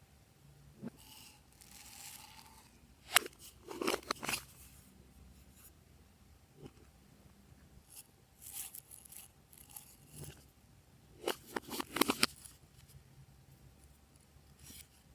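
Slime being handled and mixed: scattered crackles, crunches and tearing noises, in a burst about three seconds in and a denser cluster near twelve seconds.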